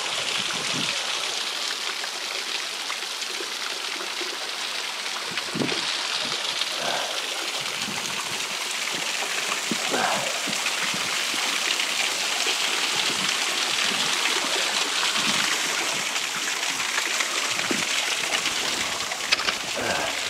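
Steady splashing hiss of a small waterfall pouring off a rock ledge onto wet rocks below.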